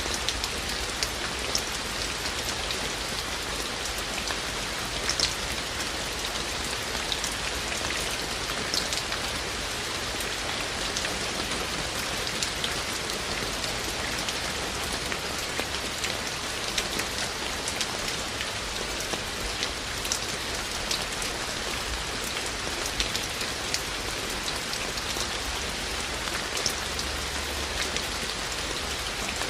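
Steady rain falling, an even hiss with many louder drips striking irregularly.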